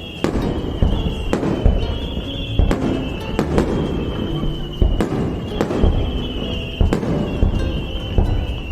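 Fireworks going off in a rapid series of sharp bangs and crackles, several each second at times, over music playing from loudspeakers.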